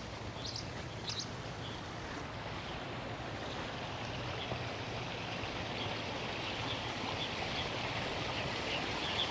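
Small waterfall splashing into a pond, a steady rush of water that grows gradually louder. A few short bird chirps sound about half a second and a second in.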